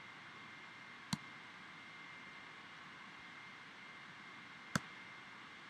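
Two sharp computer-mouse clicks, about a second in and again near the end, over a steady hiss with a faint high whine.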